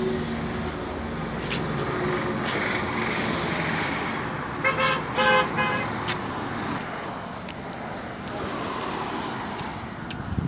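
Highway traffic: a motor vehicle's engine running and passing, then three quick horn toots about five seconds in.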